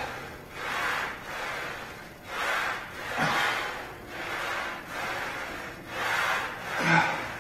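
A man's hard, rhythmic breathing under exertion through a set of barbell rows, about one breath a second, with a short grunt twice.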